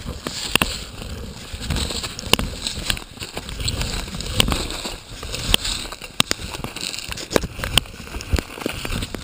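A dirt bike being dragged and turned by hand: irregular knocks and scrapes from its frame and plastics, with dry leaves and brush crackling under it.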